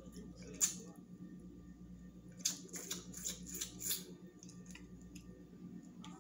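Close-miked eating sounds from a seafood boil: short sharp clicks and crackles, one about half a second in and a quick run of about six between two and four seconds in, over a low steady hum.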